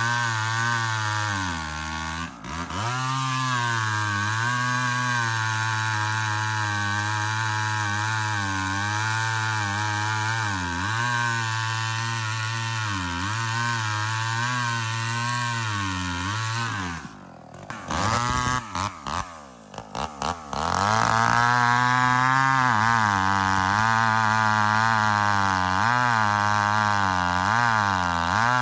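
Rebuilt two-stroke chainsaw running at high revs and cutting wood, its pitch dipping and recovering as the chain bites. About two-thirds of the way in it drops out and sputters for a few seconds, then runs again. The owner suspects the tune is a little off.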